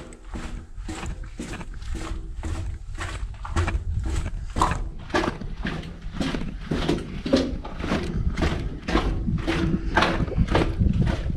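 Footsteps walking at a steady pace over rubble and grit on a tunnel floor, about two steps a second, with a low rumble underneath.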